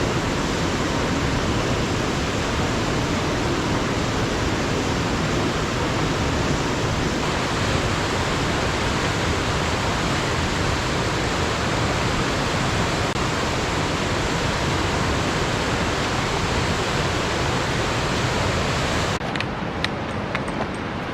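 Alpine river rushing steadily. About 19 s in, the sound cuts to a quieter background with a few sharp clicks.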